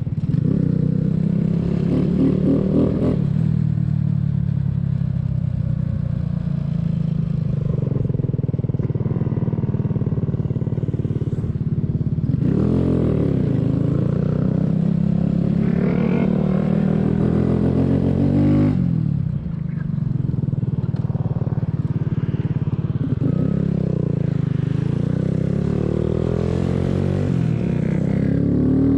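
Small 125cc single-cylinder mini motorcycle engine running while riding, its pitch climbing and dropping again and again as it accelerates and eases off through the gears. Wind noise rushes on the microphone.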